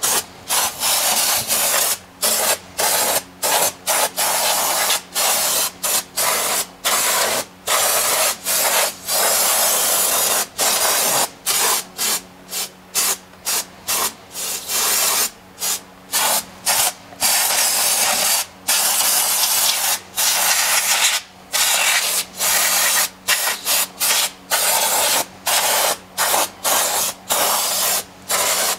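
Aerosol can of brake cleaner hissing in many repeated bursts, some short and some a few seconds long, with brief breaks between, as it washes down a drum brake's shoes and backing plate.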